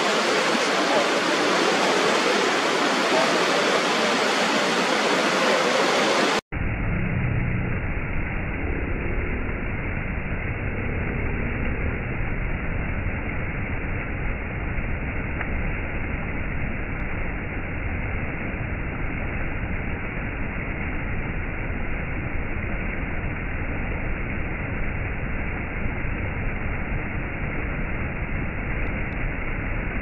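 Waterfall: a steady rush of falling water. About six seconds in it cuts abruptly to another rushing-water recording, duller and deeper, with its highs cut off.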